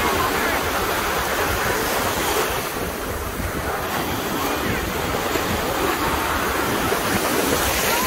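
Small surf waves breaking and washing in shallow water around wooden pier pilings, a steady rush that eases a little a few seconds in and builds again near the end. Wind buffets the microphone with a low rumble.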